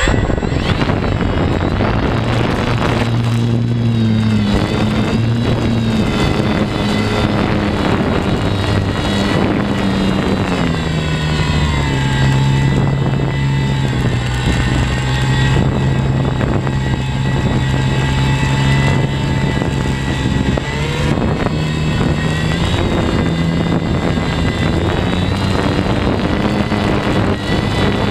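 Foam Wot 4 radio-controlled plane's electric motor and propeller, heard from on board: it spins up suddenly and runs at high throttle through takeoff and flight, with a steady whine. The pitch wavers a few seconds in, drops a little about eleven seconds in and rises again about ten seconds later as the throttle changes.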